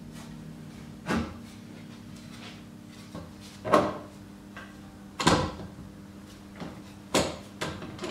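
Bar clamps being set across a glued-up wooden window sash: a series of sharp knocks and clacks of the metal clamp bars and jaws against the timber. The loudest come about a second in, near four seconds, near five seconds and near seven seconds, over a steady low hum.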